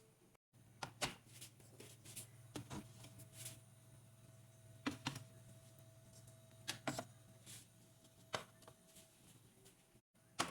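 Scattered light clicks and knocks of kitchen items being handled, over a faint steady hum.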